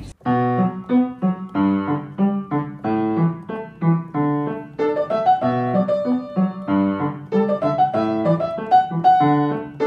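Background piano music: a melody of separate, evenly paced notes over lower accompanying notes.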